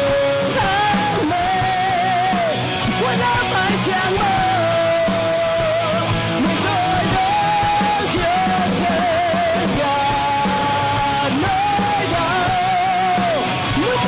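Rock band playing live: an electric lead guitar plays long, held, bent notes with wide vibrato, sliding between them, over drums and bass.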